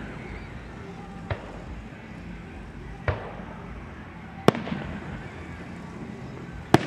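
Aerial fireworks shells bursting: four sharp bangs about a second and a half to two seconds apart, each trailing off in a short rumble, the last two the loudest.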